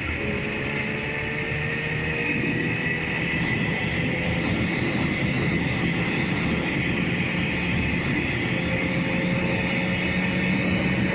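Motorcycle engine running at cruising speed with steady road and wind noise from riding along an open road, the engine note rising slowly a little.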